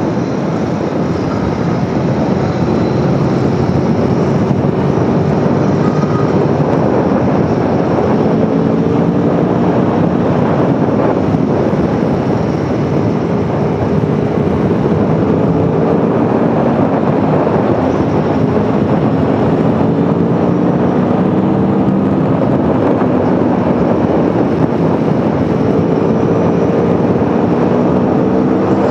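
Aprilia Tuono V4 1100's V4 engine pulling under load, its pitch climbing slowly again and again as the revs rise, over steady wind noise.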